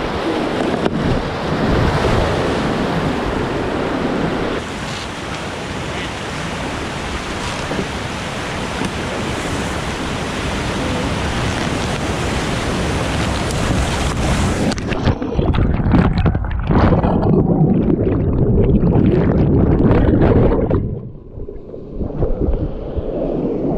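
Whitewater rapid rushing and splashing around an inflatable kayak running down a drop. About fifteen seconds in the sound turns low, muffled and surging as the camera dips to the water's surface, with a brief drop in level near the end.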